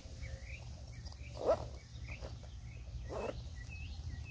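Small birds chirping in short, repeated notes over a low, steady outdoor rumble, with a brief louder squeak about a second and a half in.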